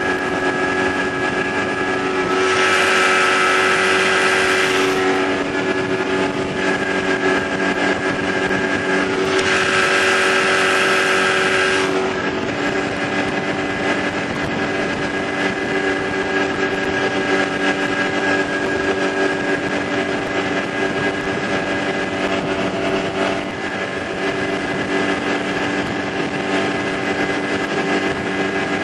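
Small boat's motor running steadily at speed, a constant droning tone. Two bursts of hissing noise, a couple of seconds each, come about three and ten seconds in.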